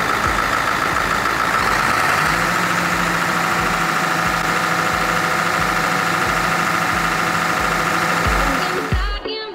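Diesel engine of a Fendt Katana 65 self-propelled forage harvester running steadily just after start-up, a loud even drone with a hiss and a steady hum. It cuts off abruptly near the end.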